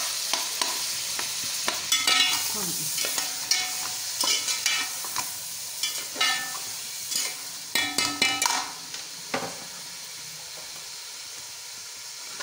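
Onions, koftas, tomato and garlic-ginger paste frying in hot oil in a pot, with a steady sizzle, while a metal spatula scrapes and clinks against the pot as the mixture is stirred. The clinks come in clusters, and the sizzle softens from about nine seconds in.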